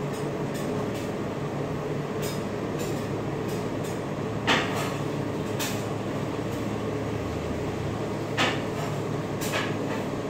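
Metal spatulas scraping and clinking on the frozen steel plate of an ice cream roll machine as ice cream is rolled up, with several sharp clinks, the loudest about four and a half and eight and a half seconds in, over a steady machine hum.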